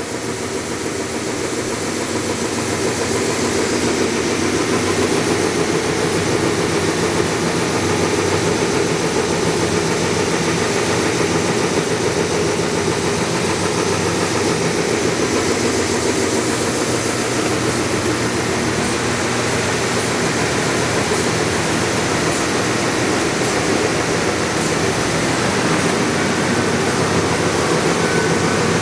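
Timesavers 137-2 HD two-head wide belt sander running: the 30 hp and 20 hp sanding heads and the feed conveyor give a loud, steady hum with a rushing noise. The sound grows louder over the first few seconds, as the feed is turned up toward its top speed, then holds steady.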